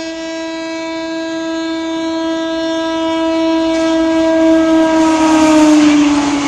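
Horn of a WAM4 electric locomotive hauling an express train at speed, one long continuous blast as it approaches; about five seconds in the pitch drops as the locomotive passes, and the rushing noise of the passing train grows louder.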